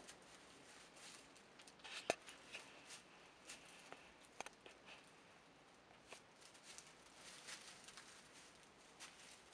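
Faint rustling of straw bedding and small scattered clicks as goat kids shift, nuzzle and step about in the straw, with one sharper knock about two seconds in.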